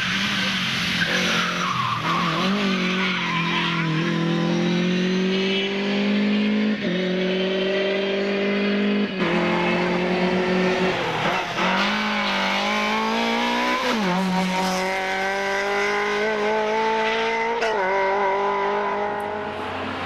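Rally car engines at full throttle, accelerating hard through the gears: the pitch climbs, drops sharply at each upshift and climbs again, a gearchange every two to three seconds. About nine seconds in the sound switches to another car doing the same.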